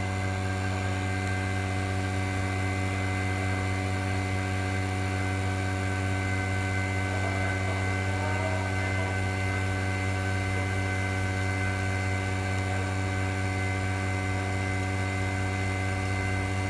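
The polarizer removal machine's electric vacuum pump running with a steady low hum. The pump draws the vacuum that holds the LCD panel on the mold while the polarizer film is peeled off.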